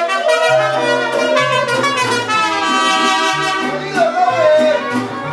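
Live mariachi-style band playing: trumpets carry the melody over strummed guitars, with a plucked bass line coming in about half a second in.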